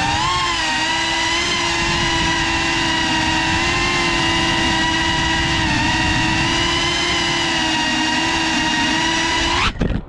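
FPV quadcopter's motors and propellers whining steadily, heard from its onboard GoPro, the pitch wavering slightly. The whine cuts off abruptly just before the end as the drone lands and its motors stop.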